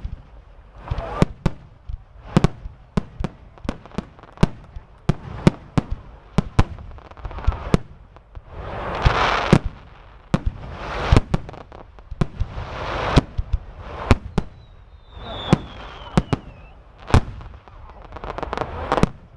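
Aerial fireworks display: a rapid, irregular string of sharp bangs from bursting shells, with stretches of hiss between them. A thin whistle falls in pitch just past the middle.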